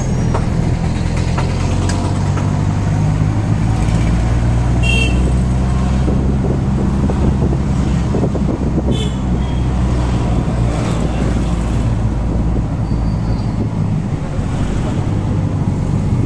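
Auto-rickshaw engine running steadily, with road noise.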